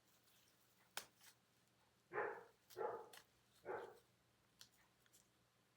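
A dog barking three times, about three-quarters of a second apart, with a sharp click a second before.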